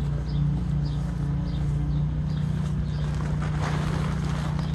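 A steady low hum throughout, with nylon tent fabric rustling briefly about three and a half seconds in as a dome tent is pulled into shape.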